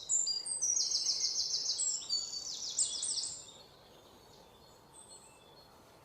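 Birds chirping: quick runs of short, high twittering calls that stop about three and a half seconds in.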